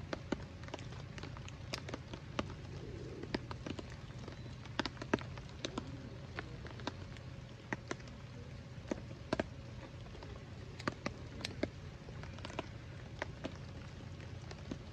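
Scattered drops of water tapping irregularly on leaves and pine needles after rain: many small, uneven ticks.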